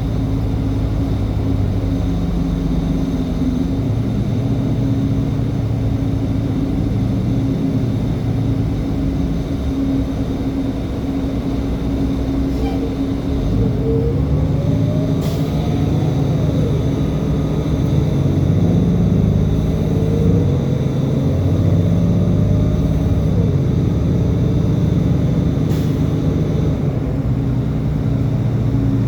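Diesel transit bus running, its engine note shifting in steps over a steady hum. Twice in the second half a whine rises and falls as the bus accelerates through its automatic transmission.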